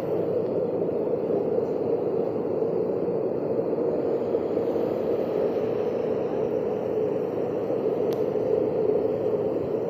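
Floodwater from a hailstorm rushing steadily, an even, unbroken noise.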